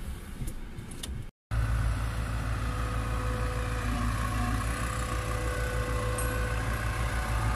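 Diesel engine of an Atlas wheeled excavator on the rails, running with a steady low rumble. It starts abruptly about a second and a half in, after a brief silence.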